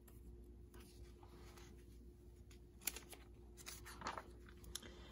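Page of a paperback picture book being turned by hand: faint paper rustles and crinkles, the sharpest about three seconds in, over a faint steady hum.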